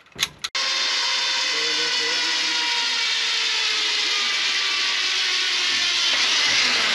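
Zipline trolley pulleys running along the steel cable as a rider is released: a couple of clicks, then a steady high whirring hiss that starts abruptly about half a second in and holds on.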